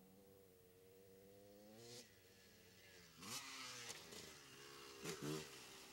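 Dirt bike engine revving, faint at first with its pitch slowly rising, then louder from about three seconds in as the bike turns close by, with a hiss of noise over the engine and two short sharp revs near the end.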